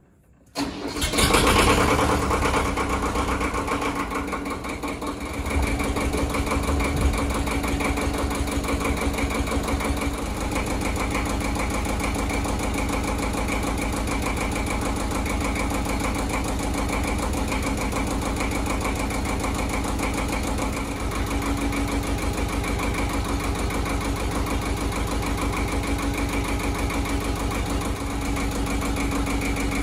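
Ford 1700 compact tractor's three-cylinder diesel engine running steadily at idle, heard from about a second in.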